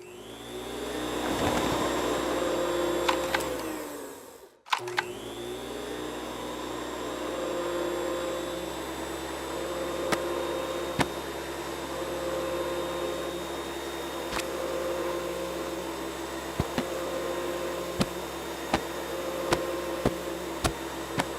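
Cartoon machine sound effect: an electric motor whirs up with a rising whine and cuts out briefly about four and a half seconds in. It then starts up again and runs steadily, with sharp clicks every second or two.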